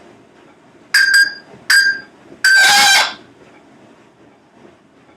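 Congo African grey parrot calling: two short, sharp calls a little under a second apart, then a longer, loud call about two and a half seconds in.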